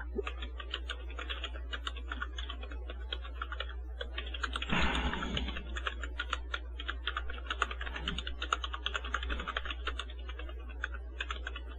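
Computer keyboard being typed on in quick runs of keystrokes, with a brief pause about four seconds in. A steady low hum runs underneath.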